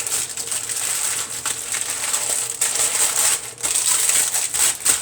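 Sandwich wrapping crinkling and crackling continuously as a tightly wrapped giant sub sandwich is handled and pressed.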